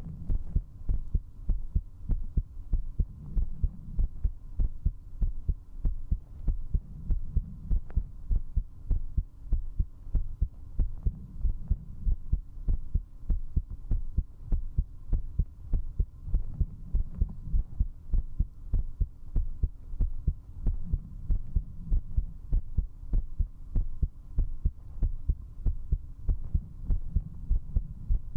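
A human heartbeat picked up at zero distance by a binaural microphone against the body: a fast, strong, steady beat, quickened by drinking alcohol.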